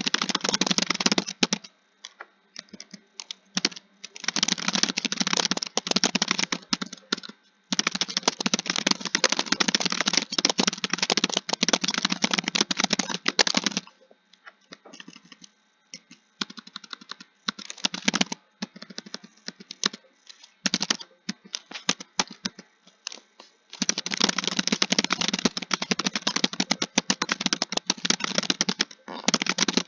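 Computer keyboard being typed on fast, in long runs of rapid key clicks. For a stretch in the middle the keystrokes come sparse and uneven.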